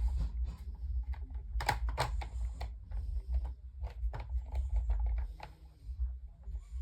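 Irregular clicks and knocks of a desk fan's front grill being handled and fitted onto the fan, over a low rumble of handling noise.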